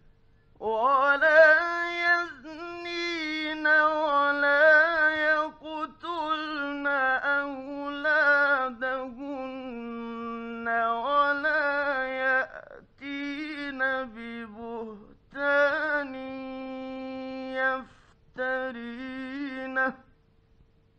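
Male Quran reciter chanting in the melodic mujawwad style: long, drawn-out phrases bending and gliding in pitch, with short breaks for breath. Old late-1950s radio studio recording.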